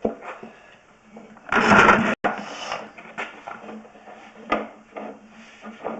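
Sewer inspection camera's push cable and reel being handled: a loud rattling scrape about one and a half seconds in, then scattered clicks and knocks.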